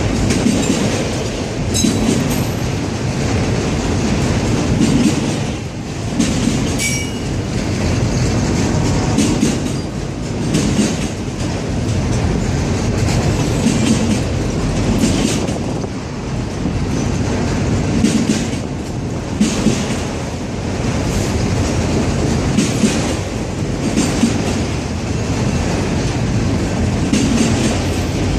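Freight train of autorack cars rolling past: a steady rumble of steel wheels on rail, with recurring clicks as the wheels cross rail joints.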